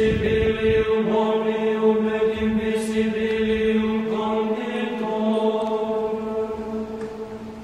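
Chant: voices holding long, steady notes over a sustained low drone, the upper notes shifting pitch twice and the singing fading toward the end.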